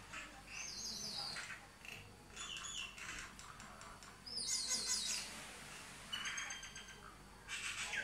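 Common mynas calling: groups of quick, high chirps and whistles mixed with harsher chattering notes, the loudest group about halfway through.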